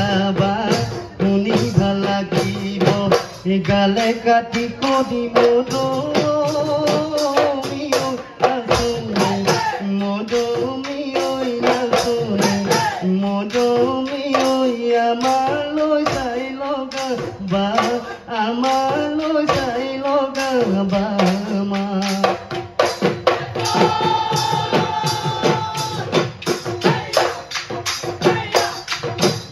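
Live Bihu music: several Assamese dhol drums beating a fast, dense rhythm with jingling percussion, under a wavering sung melody.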